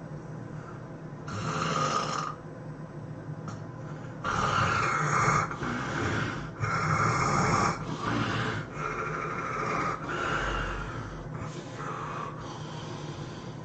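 A person snoring heavily. There is one snore, a pause, and then from about four seconds in a run of snores following close on one another, each lasting about a second.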